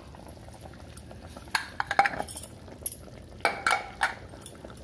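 Metal clinking and knocking on an open aluminium pressure cooker, in two short clusters, about a second and a half in and again about three and a half seconds in.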